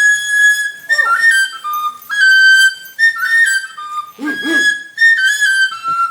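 Oja, the carved wooden Igbo masquerade flute, played in short phrases of held high notes that step up and down between pitches, with brief breaks between phrases.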